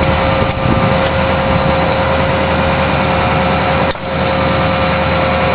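An engine idling steadily with a constant whine, with a short click and a brief drop in level about four seconds in.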